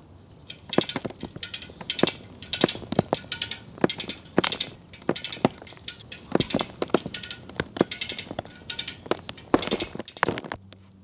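Ratchet strap being cranked tight, its pawl clicking over in quick uneven clicks, about two a second, as it puts tension on a tree being pulled out by its roots. The clicking stops about ten and a half seconds in.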